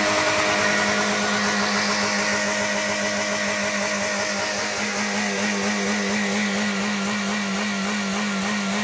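Car engine revved and held at a steady high rpm, with a handful of bolts dropped into its engine oil.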